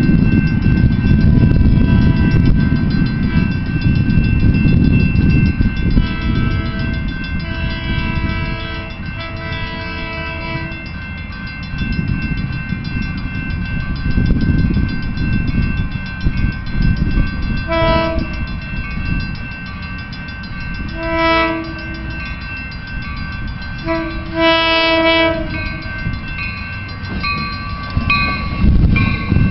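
Diesel passenger train rumbling past. Its chime horn sounds three long blasts partway through, then three short toots later.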